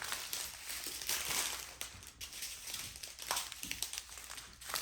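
Small plastic bags of diamond painting drills being handled and sorted, crinkling and rustling, with scattered small clicks.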